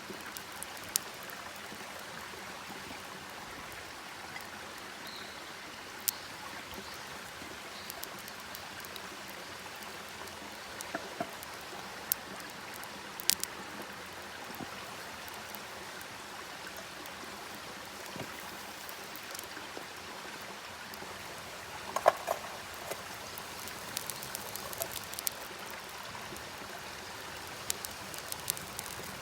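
Wood campfire burning: a steady hiss with scattered sharp crackling pops, the loudest about 22 seconds in.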